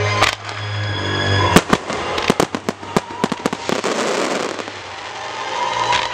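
Aerial fireworks shells bursting in a rapid string of sharp bangs, the loudest about a second and a half in, followed by a swell of crackling as the stars burn out. Music plays under it, clearest at the start and end.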